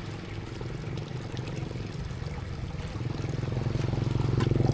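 Small engine running at a steady speed with a fast, even putter, growing louder about three seconds in.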